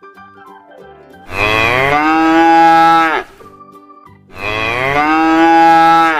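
A cow mooing twice, two long calls of about two seconds each, the pitch rising at the start of each and then held. Soft background music plays in the gaps between the calls.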